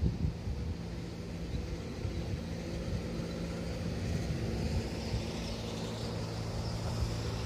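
An engine or motor running steadily with a low, even hum.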